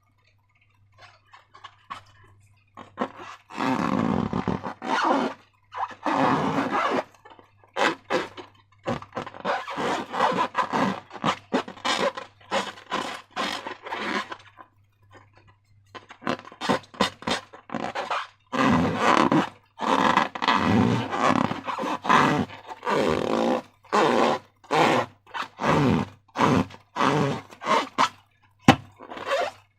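Slime being squeezed and stretched by hand, a long run of wet squelching and crackling bursts, some short and some lasting a second or two, with brief pauses between them.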